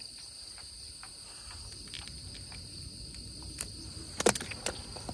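Steady, high-pitched chorus of insects, which carries on without a break. A few sharp clicks or knocks cut in, the loudest a quick cluster about four seconds in.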